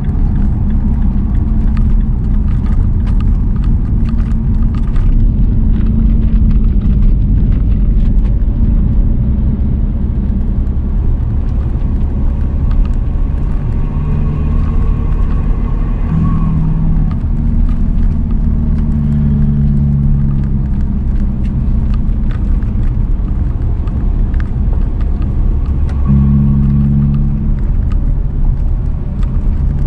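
Steady road and engine rumble inside a Chevrolet's cabin while driving at speed, the engine's low hum shifting in pitch a few times.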